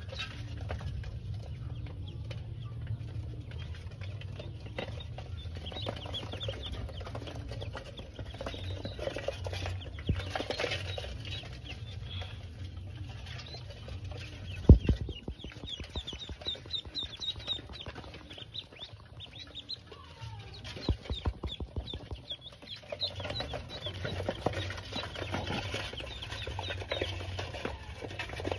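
Pekin ducklings peeping in runs of short high cheeps, with rustling as they are handled in straw. One sharp knock about halfway through.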